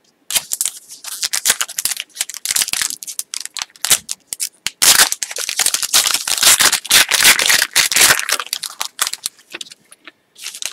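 Foil wrapper of a hockey trading card pack crinkling and tearing as it is ripped open by hand, then the cards sliding out. It is a dense crackle, loudest in the middle and thinning out near the end.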